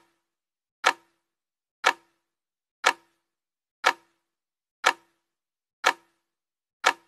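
Countdown sound effect: short, sharp clock-like ticks, about one a second, with silence between.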